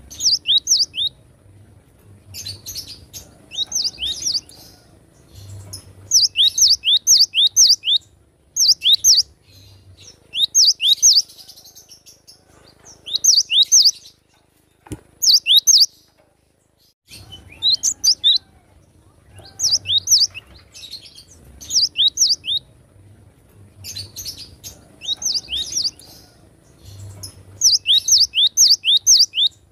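Cinereous tit (gelatik batu) singing: quick phrases of four to six high notes, each sliding down in pitch, repeated every second or two. There is a pause of about two seconds near the middle.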